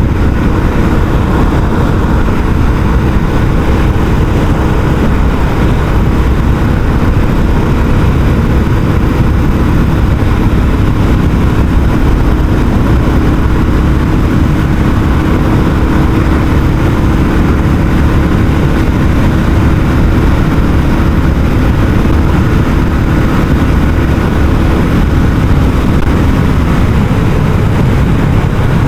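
Royal Enfield Classic 350's single-cylinder engine running steadily through its stock exhaust on a ride at an even speed, with no revving up or down.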